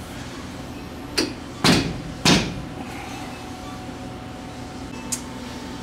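A few short knocks and clunks of hand tools and metal parts being handled at a UTV's wheel hub, three close together in the first couple of seconds and a light click near the end, over a faint steady hum.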